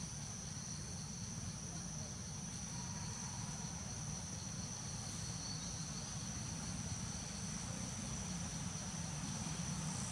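Steady high-pitched drone of insects in the forest canopy, unbroken throughout, over a low steady rumble.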